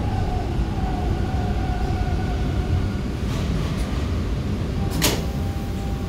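Bombardier T1 subway train running, heard from inside the car: a steady low rumble with the motor whine slowly falling in pitch, and a short hiss about five seconds in.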